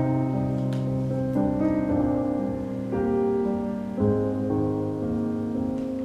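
Background piano music: slow, held chords changing about once a second.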